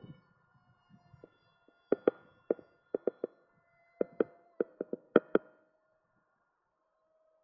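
Background music of sharp struck notes in an uneven rhythm, each ringing on at a few fixed pitches; the notes stop about five and a half seconds in, leaving only a faint held tone.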